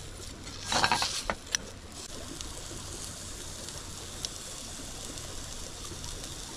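Whole trout sizzling softly in a dry non-stick pan with no oil, a steady hiss. About a second in there is a brief louder burst with a few sharp clicks as the fish is handled in the pan.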